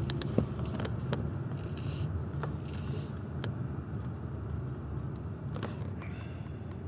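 Car interior noise while driving: a steady low rumble of engine and tyres, with a few sharp clicks and rattles, mostly in the first second or so.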